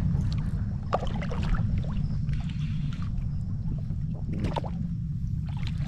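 Water sloshing and gurgling around a fishing kayak, with scattered short splashes and knocks over a steady low rumble.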